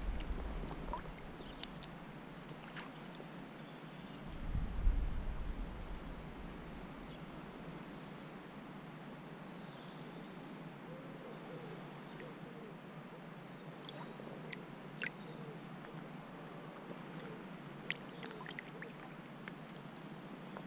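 Quiet riverside ambience during a hand release of a salmon in shallow water: soft water movement, a brief low rumble about four to five seconds in, and scattered faint high chirps and ticks.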